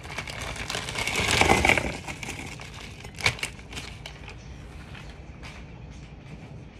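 Frozen pizza rolls shaken out of their crinkly plastic bag, clattering onto a plate; the rattle is loudest about a second and a half in. A few sharp knocks follow, the loudest about three seconds in.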